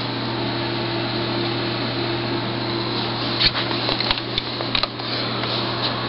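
A few light clicks and taps, bunched in the middle, as the plastic casing of a Dell LCD monitor is handled, over a steady low hum.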